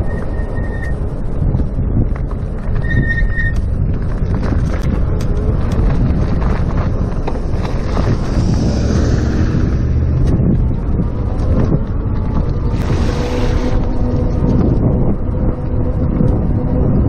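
Wind buffeting the microphone and road rumble from an electric bicycle under way, with a couple of louder rushing swells in the middle. Near the start come two brief high squeals from the bike's brakes, which need adjusting.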